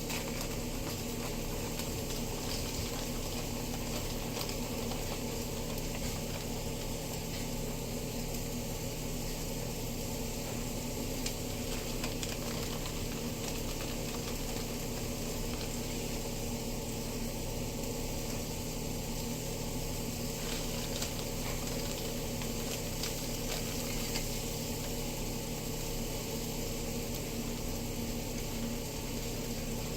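Potatoes cooking on the stove: a steady sizzle with scattered faint crackles over a low, even hum.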